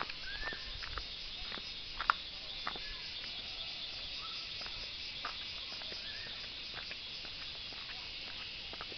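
A steady chorus of forest insects, an even high-pitched shrilling, with scattered sharp clicks, the loudest about two seconds in, and a few short rising chirps.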